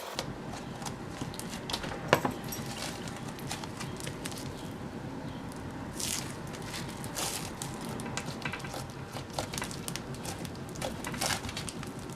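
Butter floam slime (soft butter slime with foam beads) being pressed and squished by hand, giving a steady run of small crackling clicks and soft squishes. There is one sharper click about two seconds in.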